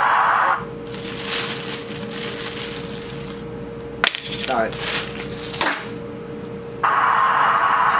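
Coins clinking: a coin drops onto a hard surface with a sharp click about four seconds in and rattles briefly with a wobbling ring as it settles, then a second clink about a second and a half later.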